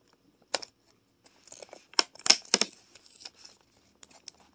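Cardboard doors of a chocolate advent calendar being torn open along their perforations: sharp clicks and short tearing, with cardboard rustling between. The loudest clicks come in a quick cluster about two seconds in.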